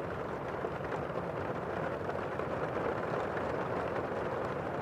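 Steady rushing background noise with no distinct events, an even ambience bed that neither rises nor falls.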